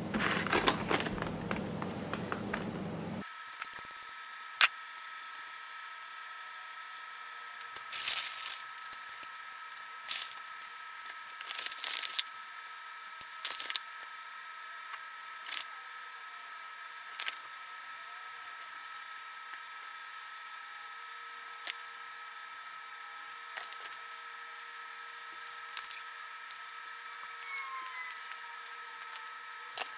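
A plastic quail-egg carton is handled for about the first three seconds. After that come scattered light clicks and rustles of toppings being set on a naan pizza on parchment paper, over a steady faint high whine.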